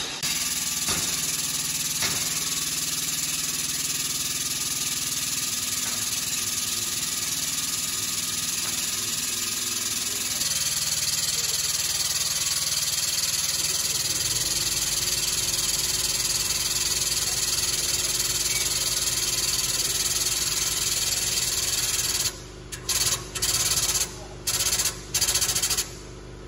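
Hydraulic shop press's power unit running steadily with a hissing hum as the ram presses down on a wood block to straighten a bent steel sprayer-boom bracket. Near the end the sound cuts out and back in several times.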